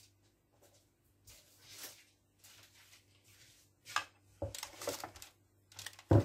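A metal baking tray lined with baking paper is handled and slid onto a marble counter: light rustles and scrapes, growing louder about two-thirds of the way in, then one sharp knock near the end as the tray is set down.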